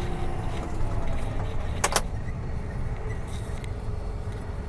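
Tractor engine running low as the tractor is brought to a stop, a faint whine easing down in pitch during the first second. A single sharp click about two seconds in.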